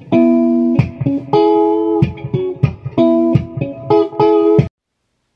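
Stratocaster-style electric guitar played through a tube amp: a phrase of chords and single picked notes that cuts off abruptly near the end.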